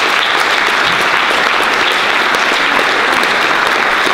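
Audience applauding: many people clapping together in a loud, steady patter.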